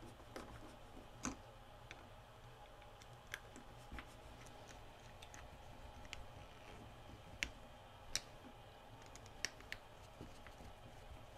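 Screwdriver turning small screws into the plastic motor mount of a VCR loading mechanism: faint, irregular clicks and ticks of the tip on the screw heads and plastic housing, about six of them sharper than the rest.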